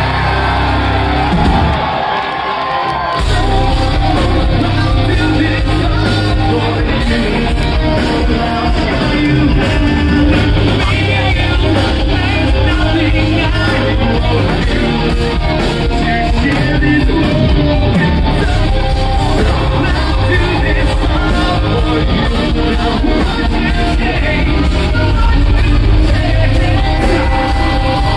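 Live rock band playing loud, with electric guitars and a singer yelling and singing, echoing in a large hall. The low end is thin for the first few seconds, and the full, bass-heavy band comes in about three seconds in.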